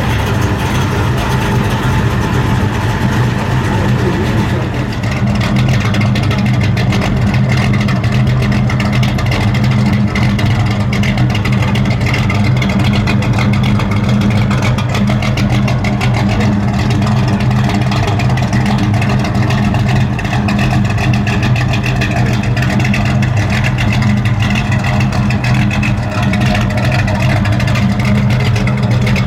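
A muscle car's V8 engine running loudly at a steady speed, with a deep, even rumble and no clear revs.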